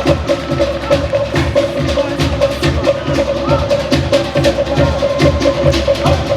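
Fast, steady Polynesian show drumming: rapid clicks from wooden slit drums over a deep drum beat, with a sustained held tone above.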